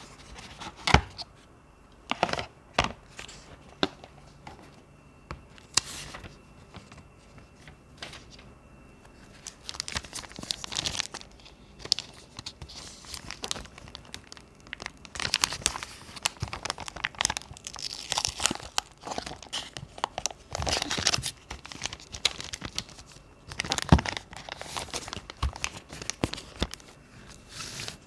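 Packaging of a wireless keyboard being unwrapped, crinkling and tearing in bursts. Sharp knocks and taps in the first few seconds give way to denser crinkling from about ten seconds in.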